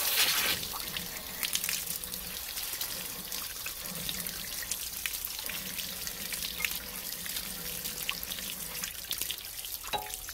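Water draining and splashing out of an RV water heater's tank drain opening around an inserted flushing wand, with many small drips and splashes. The wand's loud spray cuts off about half a second in, and the tank then empties at a steady trickle, loosening sediment and muck from the bottom of the tank.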